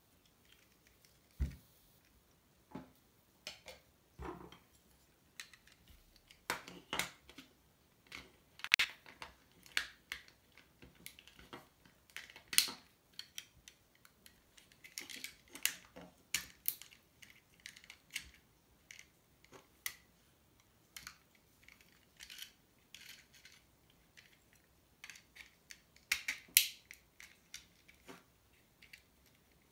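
Irregular small clicks, taps and scrapes of plastic and metal alarm-clock parts being handled and pried at with a screwdriver on a tabletop, with a dull knock about one and a half seconds in.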